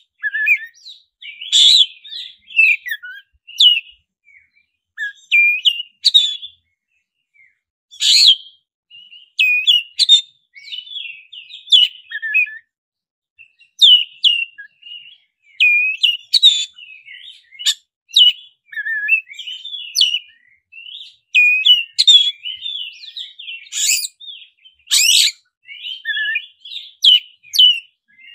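Black-breasted Oriental magpie-robin singing a loud, varied song of sharp whistles, chirps and quick trills in short phrases with brief pauses between them.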